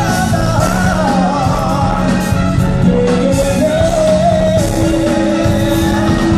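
A Latin freestyle dance-pop song performed over a loud amplified sound system: a lead vocal sings a wavering melody over a steady beat, bass and keyboard chords.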